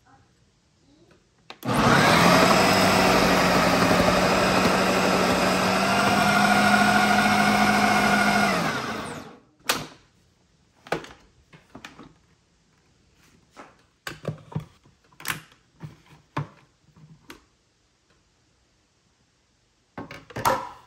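Ninja Auto-IQ blender motor running for about seven seconds, driving a grating disc through beetroot in the food-processor bowl, with a steady whine over a low hum, then cutting off. Scattered clicks and knocks follow as the plastic bowl and lid are handled and unlocked.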